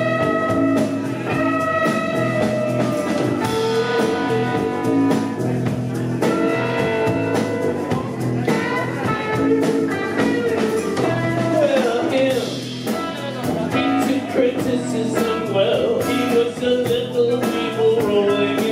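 Live indie rock band playing: electric guitar, bass guitar and drums, with a voice singing.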